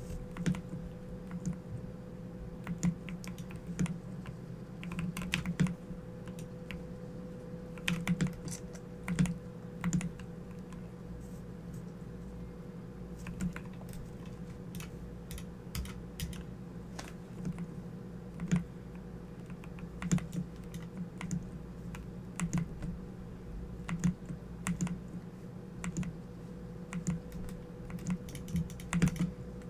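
Corsair computer keyboard being typed on: irregular key clicks in uneven bursts, over a steady low electrical hum.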